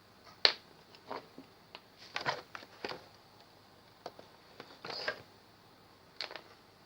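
Irregular small clicks, taps and brief scrapes of hard parts and tools being handled, with the sharpest click about half a second in, a cluster of scrapes around two to three seconds and again around five seconds, and a last click a little after six seconds.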